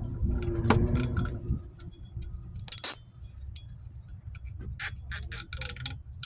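Scattered light clicks and metallic clinks from hand work on drum brake parts, over a low steady hum.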